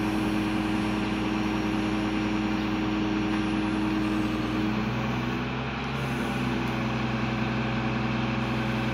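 Truck engine running steadily to drive a truck-mounted self-loader crane's hydraulics as the boom moves. About halfway through, the engine note drops to a lower pitch and holds there.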